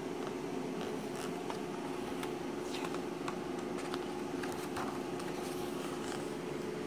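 Glossy yearbook pages being handled and turned, with soft paper rustles and scattered light clicks, over a steady low hum.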